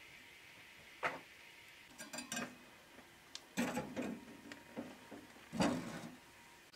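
Metal frying pan knocking and scraping against the top of a wood-burning stove: a sharp knock about a second in, then several clunks and scrapes as the pan is set down and shifted, the loudest near the end.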